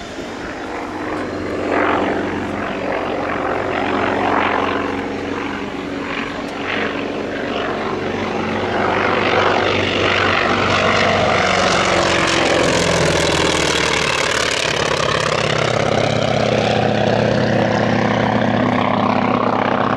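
North American T-28 Trojan's radial engine and propeller droning as the plane flies in, growing louder and passing close about two-thirds of the way through. The pitch drops a little as it passes and climbs away.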